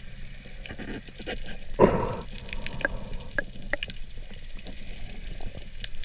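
Underwater ambience heard through a submerged camera, with scattered sharp clicks and a short burst of bubbling about two seconds in.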